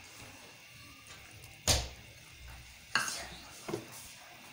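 A utensil knocking against a metal cooking pot as garlic-ginger paste is added to onions browned in ghee: two sharp knocks, the louder one near the middle, then a lighter tap.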